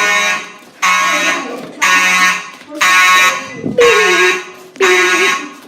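Hotel fire alarm horns sounding in evacuation. The buzzy horn tone pulses about once a second.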